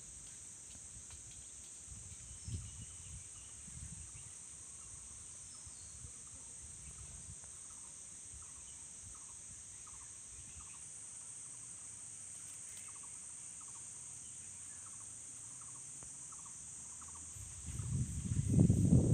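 A steady, high-pitched insect chorus drones continuously, with a faint series of short chirps through the first half. A loud low rumble of noise on the microphone swells in near the end.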